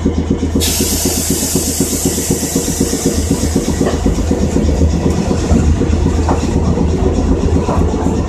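Cab running noise of an Iyo Railway Moha 50 streetcar travelling on street track: a steady motor and wheel hum with a fast, even pulsing.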